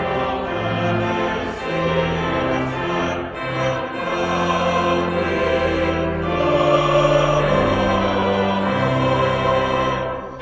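Choir singing a hymn in sustained chords, accompanied by a pipe organ holding steady bass notes beneath.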